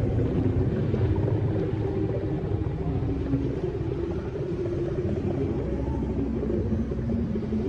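The so-called 'Earth creak' or 'strange sounds' phenomenon: long, low tones that shift in pitch, held over a steady deep rumble. Its source is unexplained, and some take the recordings for a fake with an electronic track laid over amateur video.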